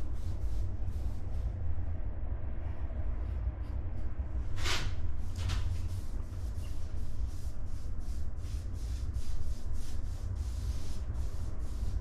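A paintbrush being stroked back and forth along a wooden baseboard, laying on semi-gloss paint in quick, repeated brushing strokes, with two louder strokes about five seconds in. A steady low rumble runs underneath.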